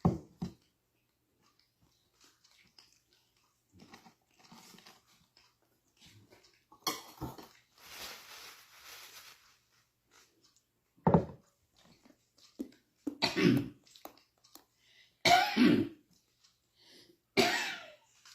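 A person coughing: several loud, separate coughs a few seconds apart, with quieter chewing and rustling between them.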